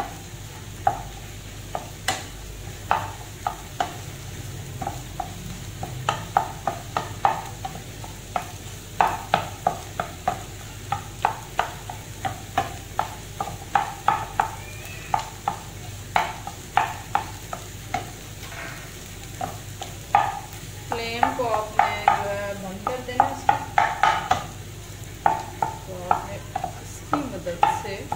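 Wooden spatula scraping and tapping against a non-stick frying pan in many quick strokes, a few a second, as beaten eggs are stirred and broken into small scrambled pieces, over a light sizzle of hot oil.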